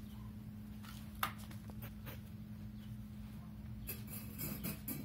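Steady low hum with a sharp click about a second in and a short run of light clicks and rattles near the end.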